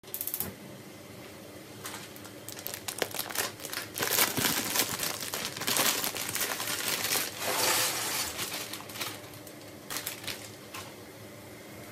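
Plastic bag of dry pasta crinkling as it is handled and its contents tipped out into a cooking pot, in irregular crackly bursts, busiest in the middle.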